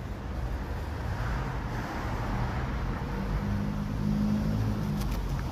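Road traffic: a car passing close by, its tyre hiss swelling about two seconds in, followed by a steady engine hum over a constant low rumble.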